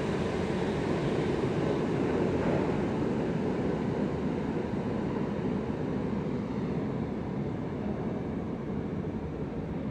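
New York City Subway N train leaving the station down the tunnel, a steady rumble of wheels and motors that slowly fades as it pulls away, its higher hiss dropping out about halfway through.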